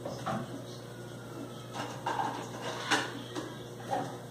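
A few sharp kitchen knocks and clicks, about two seconds in and a tight cluster around three seconds, over a steady low hum.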